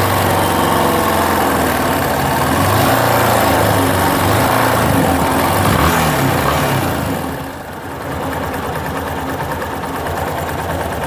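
Yamaha Fazer 250's single-cylinder four-stroke engine running hot, its speed lifting a little in the middle and dropping back about seven seconds in. The 'tec-tec' ticking it makes only once warm is traced to the cam chain tensioner.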